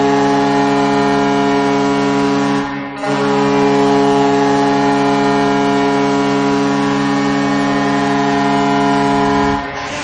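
Ice hockey arena goal horn blowing a loud, low, multi-tone blast that breaks off briefly about three seconds in, then sounds again and holds until it fades just before the end.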